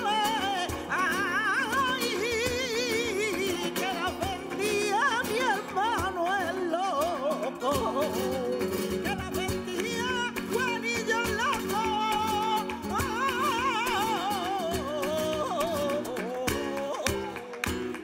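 Flamenco cante: a woman singing in a wavering, heavily ornamented line with vibrato, over steady instrumental accompaniment with sharp clicks.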